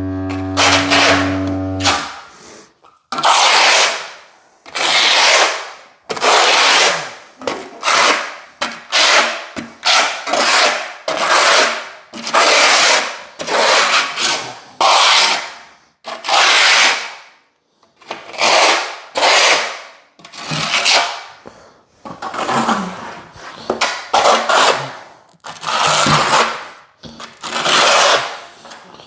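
Steel trowel scraping thinset mortar in repeated strokes, about one a second, each a short rasping scrape.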